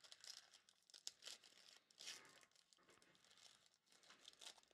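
Faint crinkly tearing and crumpling of a gold foil trading-card pack wrapper being ripped open by hand, in short irregular bursts.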